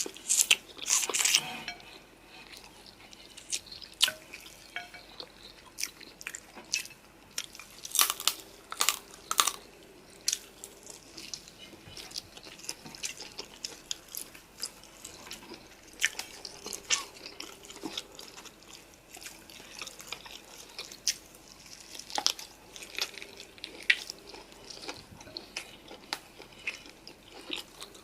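Close-up eating sounds: chewing and biting into spicy noodles and chicken, making irregular wet clicks and crunches, with louder bursts about a second in and again around eight to nine seconds in.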